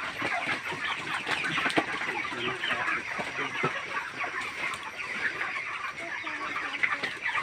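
A large flock of broiler chickens clucking and chirping, many overlapping calls running on without a break.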